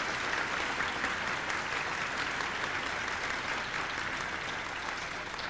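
Audience applauding: a steady dense clapping that eases off slightly near the end.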